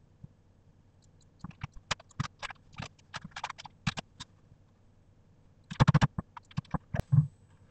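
Computer keyboard typing: irregular runs of key clicks, with a quick flurry of keystrokes about six seconds in.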